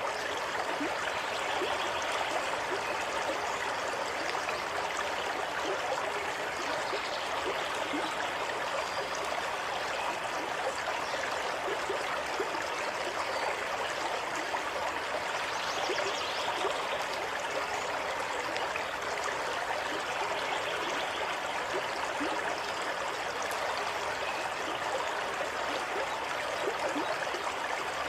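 Running water of a small stream flowing steadily, an even rush dotted with small gurgles and splashes.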